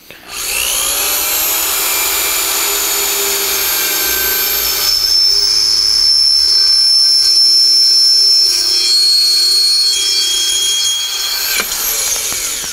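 Corded electric drill spinning up and boring a hole through a metal frame plate. It runs steadily with a shift in pitch about five seconds in, then winds down near the end.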